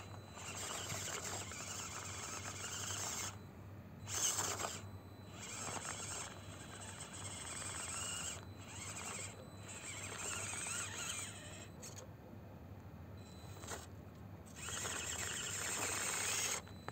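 Whine of the Absima CR-18 Pro Hunter 1/18-scale RC crawler's electric motor and gearbox, coming in stop-start throttle bursts as it climbs over rock. The pitch shifts with speed, and one short burst about four seconds in is the loudest.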